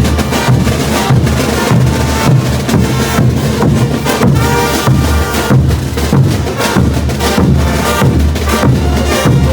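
Bolivian brass band playing loudly. Bass drum and snare drive a steady beat under the horns.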